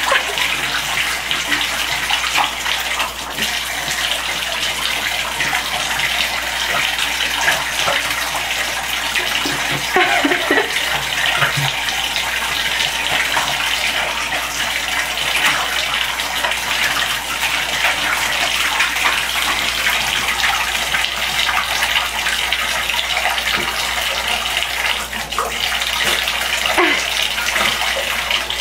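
Bathtub faucet running steadily, water splashing into a shallow tub and flowing toward the open drain.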